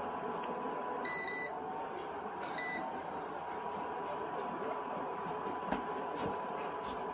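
Two short electronic beeps, the first about a second in and slightly longer, the second about a second later. Underneath runs a steady low noise with a faint steady whine.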